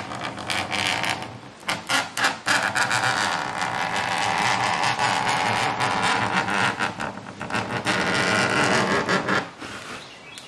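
A hooked plexiglass scoring knife dragged along a line in an acrylic sheet, scoring a groove: a few short scrapes, then one long steady scrape from about two seconds in that stops shortly before the end. Each pass deepens the score until the sheet can be snapped off.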